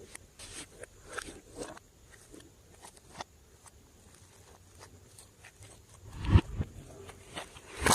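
Slime being squeezed and poked by hand, making scattered sticky clicks and crackles, with a louder, deeper squish about six seconds in.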